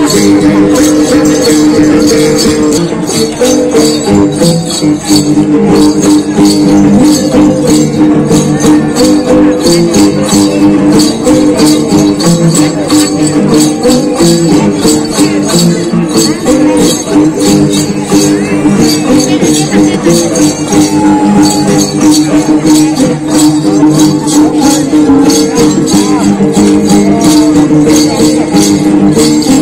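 An ensemble of five tính tẩu, Thái long-necked lutes with gourd bodies, strummed together in a fast, even rhythm with a bright, rattling edge.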